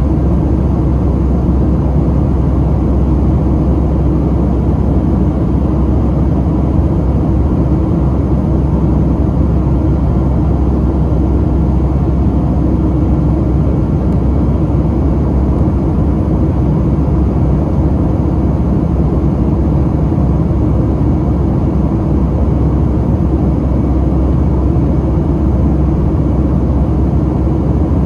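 Boeing 737-700 cabin noise heard from a window seat beside the wing: the CFM56-7B turbofan engines and airflow make a steady, even low rumble.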